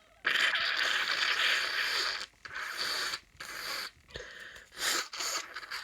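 A person with a bad cold blowing their nose: one long, forceful blow of about two seconds, followed by several shorter blows.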